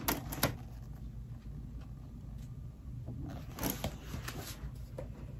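Pages of a large hardcover book being turned and flipped, giving soft paper rustles and riffles. A couple of light ticks come right at the start, and most of the rustling falls in the second half.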